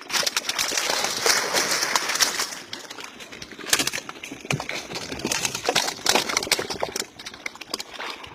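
Water splashing and churning as a landing net is swept through a river, loudest in the first three seconds. After that come irregular sharp slaps and flaps as netted fish land on a pile of fish in a boat.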